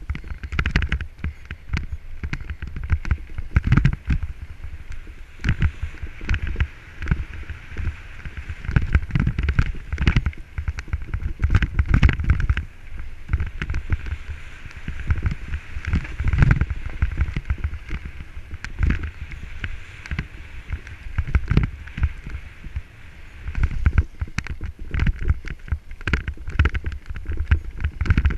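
Mountain bike descending a rough forest trail, heard from a helmet-mounted camera: a steady rumble of wind on the microphone and tyres on dirt, with frequent rattles and knocks as the bike goes over stones and bumps.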